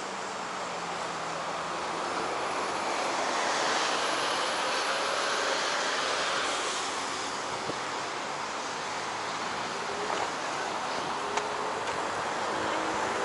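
Street traffic: a steady rush of tyre and engine noise that swells as a vehicle passes and then eases.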